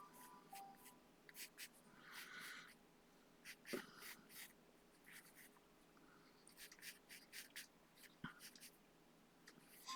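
Faint scratching of drawing strokes on a surface, short strokes coming in irregular clusters as a figure is sketched.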